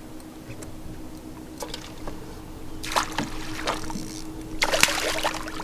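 A hooked wiper, a white bass–striped bass hybrid, splashing and thrashing at the surface as it is scooped into a landing net beside the boat, in bursts about three seconds in and again near the end, over a steady low hum.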